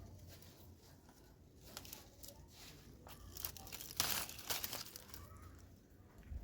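Crinkling, rustling handling noise: a run of small crackles, with a louder, longer rustle about four seconds in.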